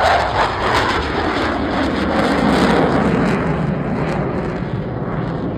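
Roar of a CF-18 Hornet's twin F404 jet engines passing overhead. The pitch of the roar sinks steadily and the sound fades a little as the jet moves away.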